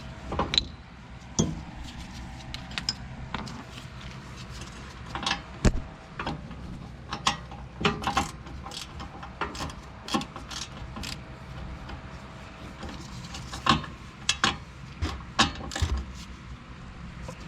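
Irregular metallic clinks and knocks of hand tools and brake parts being handled at a car's rear brake, with a few sharper strikes about six seconds in and near fourteen seconds.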